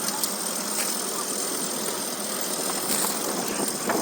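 An engine running steadily, with a few sharp clicks over it.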